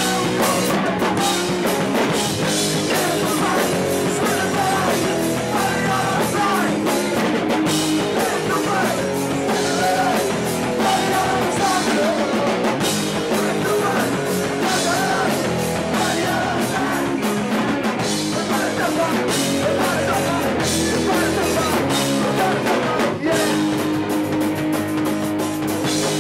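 Punk rock band playing loud: electric guitars, drum kit and sung vocals.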